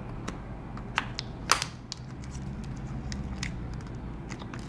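Thin metal pry tool (iSesamo) being forced under a smartphone battery to break its adhesive: scattered small clicks and scrapes, the sharpest about a second and a half in, over a faint low hum.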